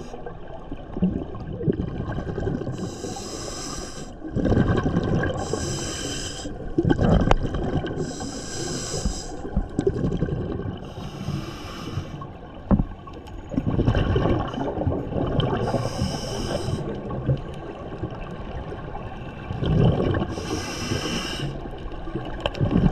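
A scuba diver breathing through a regulator underwater. About six hissing inhalations, each roughly a second long, alternate with low, bubbling exhalations.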